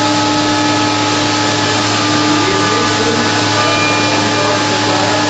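CNC machining center running: a steady, loud mechanical whir with several constant hum tones that do not change.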